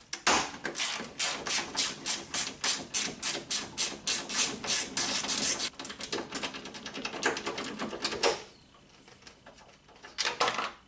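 Hand ratchet clicking rapidly as it is swung back and forth to back out bolts, about four to five clicks a second for some eight seconds; it stops, then clicks a few more times near the end.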